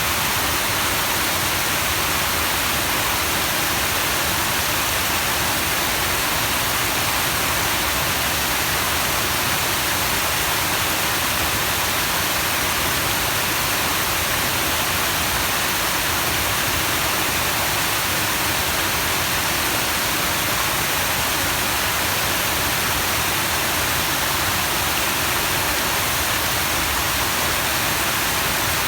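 Rushing water: a steady, unbroken hiss of flowing water that stays even throughout.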